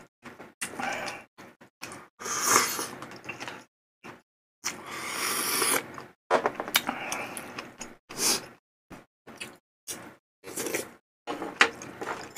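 Close-miked eating sounds from a bowl of malatang: two long slurps, wet chewing between them, and many short clicks of wooden chopsticks against the plastic container.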